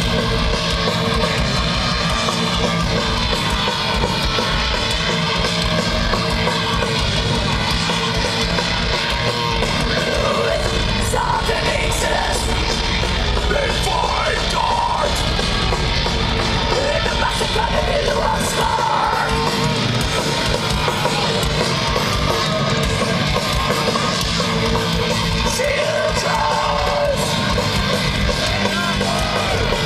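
Thrash metal band playing live through a festival PA: distorted electric guitar, bass and drums in a dense, loud wall of sound, with shouted vocals over it.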